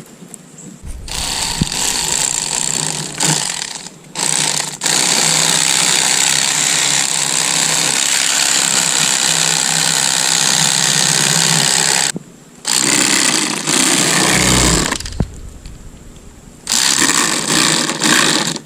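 A small handheld electric tool running on a fish as it is cleaned, most likely an electric fillet knife cutting a fillet from a shellcracker. It runs in long bursts with a few short stops.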